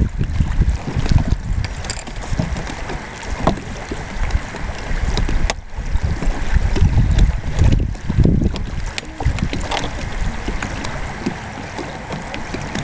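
Wind buffeting the microphone in uneven gusts, with a few sharp clicks and knocks as the hull panels and fittings of a folding hard-shell kayak are handled and fastened.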